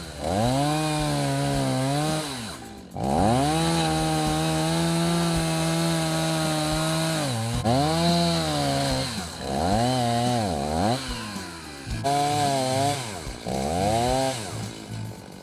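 Stihl two-stroke chainsaw running at high revs, its pitch sagging and recovering again and again as it works. It cuts out briefly about three seconds in.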